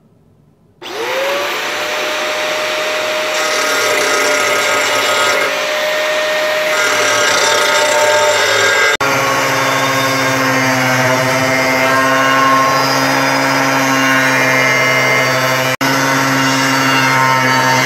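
Angle grinder with an abrasive disc starting up about a second in, its whine rising and then settling, and then cutting into a steel circular saw blade: a steady high whine over harsh grinding noise, with two brief breaks.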